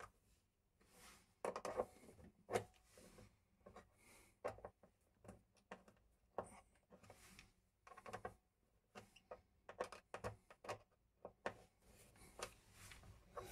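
Faint, scattered clicks and scrapes of a small screwdriver turning the side fixing screws of a flush-mounted wall socket's metal frame, metal on metal, with a few louder knocks.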